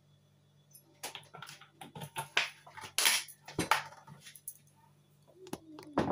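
Kitchen handling noises at a gas stove: an irregular run of sharp clicks and knocks starting about a second in and lasting some three seconds, with a few more near the end, over a faint steady low hum.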